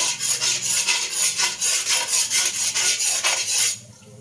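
Utensils rubbing and scraping around the inside of a large empty metal wok in quick repeated strokes, pausing briefly near the end.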